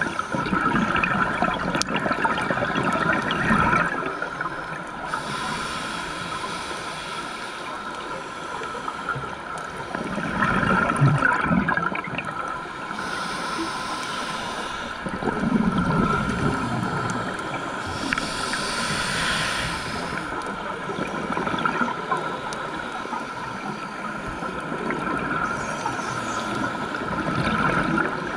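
Scuba diver breathing through a regulator underwater: exhaled bubbles gurgling in surges, alternating with hissing inhalations, in slow cycles a few seconds apart.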